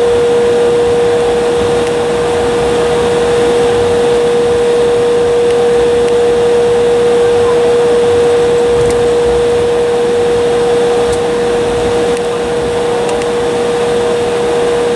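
Cabin noise of an Embraer E175 jet taxiing: a steady rushing hum from its idling CF34 turbofans and air conditioning, with a constant mid-pitched whine over it.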